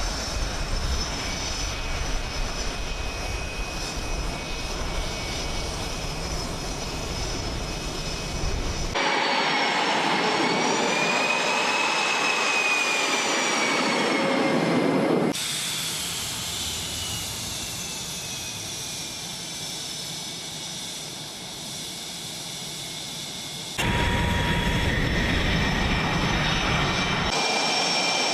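F/A-18 fighter jet engines running, in several clips cut together: a steady roar, then a high turbine whine gliding in pitch as the jets move. The sound changes abruptly at each cut, getting louder about a third of the way in, quieter around the middle, and louder again near the end.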